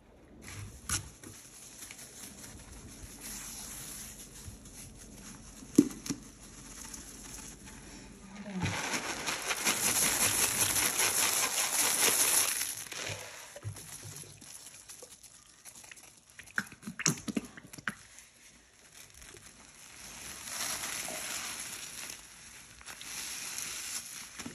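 White cleaning powder and flakes are poured onto wet foamy paste in a basin, giving a dense, loud hiss for about four seconds near the middle. Around it, foam-soaked sponges squish and crackle in the paste, with a few sharp taps.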